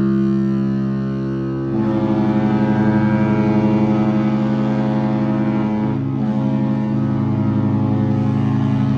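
Two cruise liners' horns, the Queen Anne's and the Queen Mary 2's, sounding long overlapping blasts in an exchange of salutes. One deep horn chord is held steady, and a second horn joins it about two seconds in. The combined sound is louder, with a slight pulsing, and wavers briefly near the middle.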